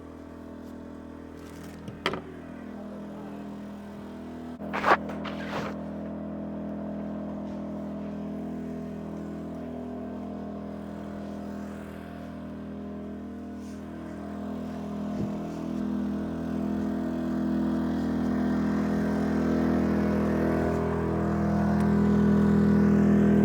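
Yamaha EF2200 inverter generator's single-cylinder four-stroke engine running with a steady hum, its pitch shifting a little in the second half and growing louder near the end. Two sharp knocks sound about two and five seconds in.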